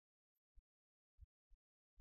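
Near silence, broken by four faint, short low thumps at uneven intervals and one faint high tick.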